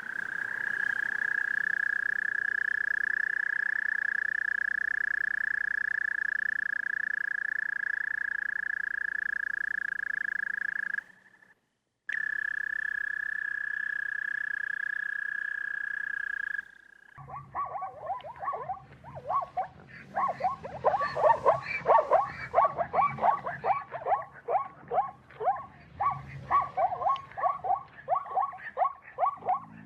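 Frogs calling: first one long, steady high-pitched trill that breaks off for about a second and resumes, then a chorus of rapid, repeated croaking calls.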